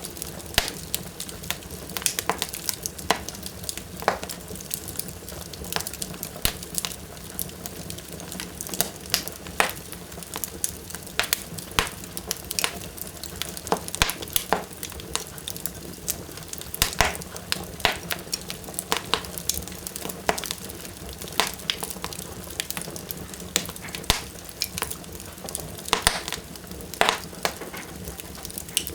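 Wood fire burning strongly in a fireplace, with frequent sharp crackles and pops over a steady low hiss.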